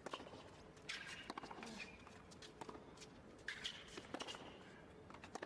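Tennis rackets striking the ball back and forth in a baseline rally, a series of sharp pops a second or so apart, faint and heard from courtside.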